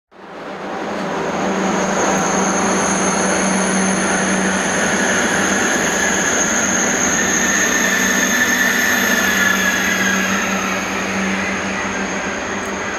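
Passenger train rolling slowly along the platform: a steady rumble and hum with a faint wheel squeal that grows a little stronger past the middle. The sound fades in over the first second.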